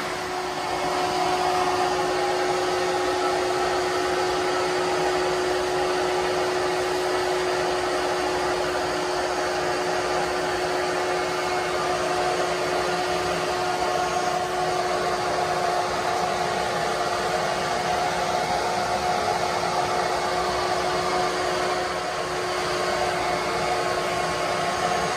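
A small electric motor running steadily: an even whir with a constant hum.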